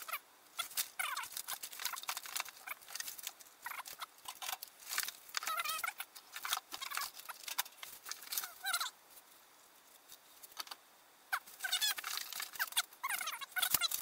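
Foam packing squeaking and plastic wrapping crinkling as a soundbar is unpacked from its box: a run of short, wavering squeaks mixed with rustles and clicks, pausing briefly around ten seconds in.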